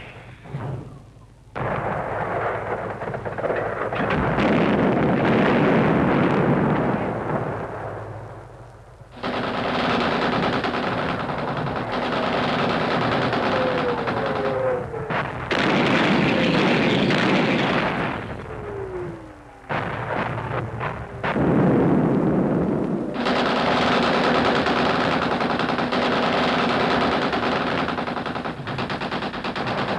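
Battle sounds of machine-gun and rifle fire in long rapid bursts, broken by a few short lulls, with a falling whistle heard twice around the middle.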